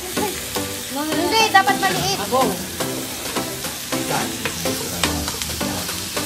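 Pork belly and onion slices sizzling on a Korean grill pan over a portable gas stove, with short clicks as wooden chopsticks turn the meat. A voice is heard briefly about a second in.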